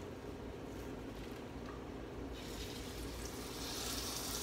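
Floured roast laid into a skillet of hot grease, a steady sizzle starting about halfway through as the meat begins to sear.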